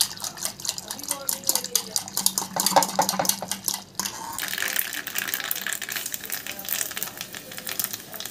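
A wire whisk stirring and clinking against the side of an aluminium pot of sambar. About four seconds in it cuts to the steady hiss and crackle of seeds sizzling in hot oil in a small tempering ladle for the tadka.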